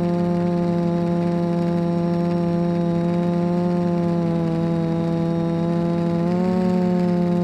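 An engine running steadily at high speed, its pitch rising slightly about six seconds in.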